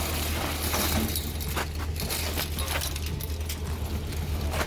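A vehicle engine idling with a steady low hum, with light metallic clinks and rattles over it.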